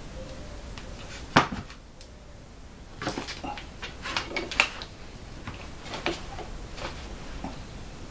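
Metal parts of a Record SC4 woodturning chuck being handled and fitted together: one sharp knock about a second in, then a run of quick clicks and clinks, and a few more near the end.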